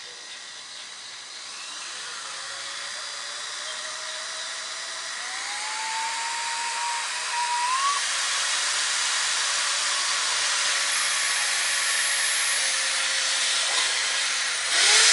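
Electric drill boring holes through a plastic truck fender flare, running continuously. The motor whine climbs in pitch and the sound grows louder over the first eight seconds or so, then holds steady.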